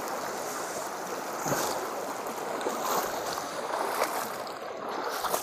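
Shallow river running over stones in a steady rush, with a few splashes as bare feet wade through the water.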